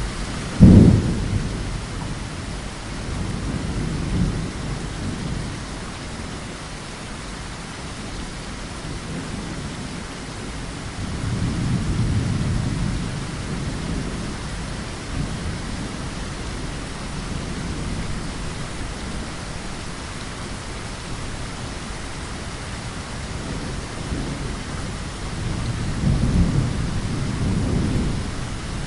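Steady heavy rain hissing, with rolling thunder: a sharp thunderclap just under a second in, then low rumbles swelling and fading several times, the loudest near the end.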